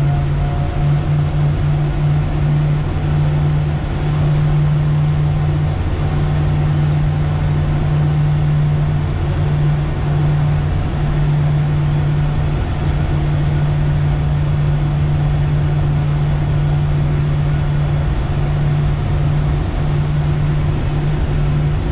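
Outboard motor on a Regal cruiser running steadily at speed, a constant low drone heard from the helm, with a steady rush of wind and water noise.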